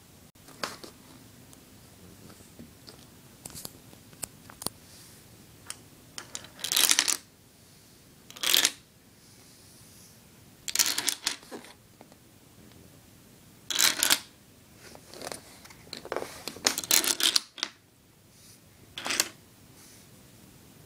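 Dominoes clattering in short bursts of rapid clicks, about six of them, with faint scattered ticks in between.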